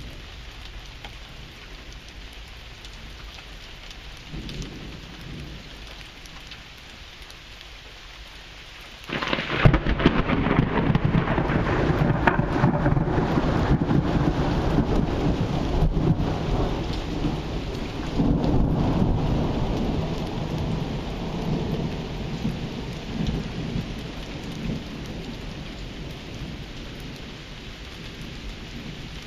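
Steady rain falling during a thunderstorm. A faint rumble of thunder comes about four seconds in. About nine seconds in a loud thunderclap breaks out suddenly and rolls on for more than ten seconds, swelling again partway through, then fades back to the sound of the rain.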